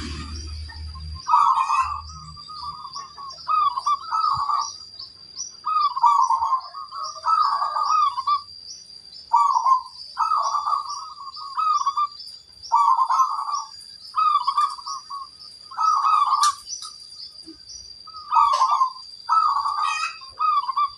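Zebra dove (perkutut) cooing, phrase after phrase with short gaps between them.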